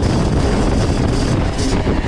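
Kawasaki KX85 85 cc two-stroke dirt bike engine running while the bike is ridden, loud and rough.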